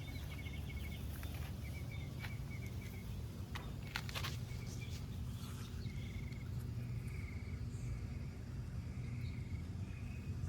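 Outdoor garden ambience: a steady low rumble under short, high chirping trills repeated every second or so, with a few sharp clicks about four seconds in.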